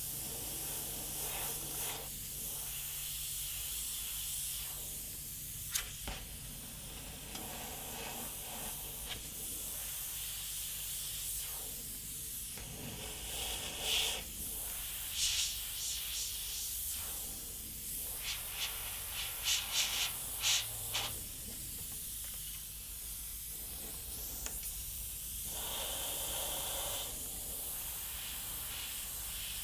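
Iwata Eclipse HP-CS gravity-feed airbrush spraying thinned water-based paint: a steady hiss of air and paint, with a run of short, sharper spurts in the middle as the trigger is worked.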